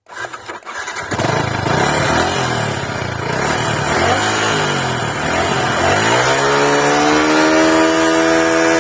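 Motorcycle engine starting and revving. It catches within the first second, is revved up and down several times, then climbs at about six seconds and holds a steady higher rev.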